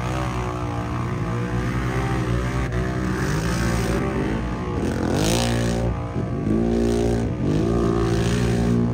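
Mud truck engine revving hard, its pitch swinging up and down several times, with the biggest surge about halfway through.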